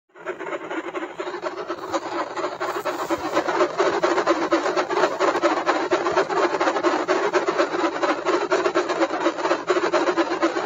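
Electronic 'black hole sound' effect: a dense crackling drone over a steady low hum, swelling over the first few seconds and then holding steady.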